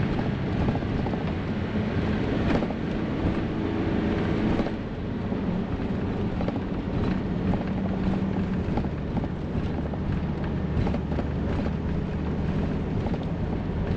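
Class C motorhome driving on a winding road, heard from inside the cab: a steady engine and road drone with scattered light rattles and clicks.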